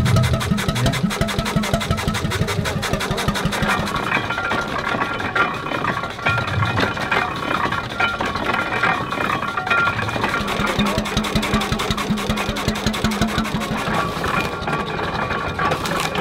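A hundred-year-old hot-bulb engine running steadily after a cold start, with an even, rapid beat.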